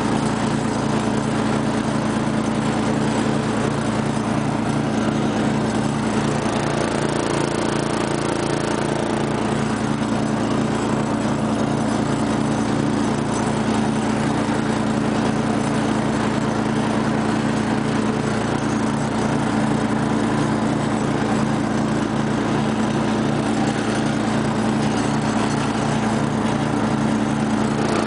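The 12 hp Briggs & Stratton engine of a 1999 Murray rear-engine riding mower running steadily at a constant speed as the mower drives along.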